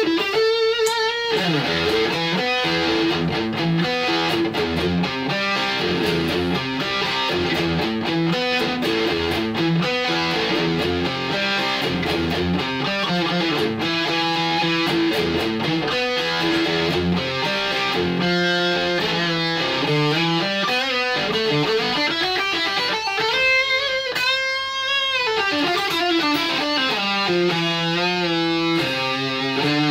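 Edwards ED-85TE electric guitar played through a Bugera 6262 valve amp head, heard in the room on a camera microphone: a run of fast lead lines and bends, with a held note given wide vibrato near the end.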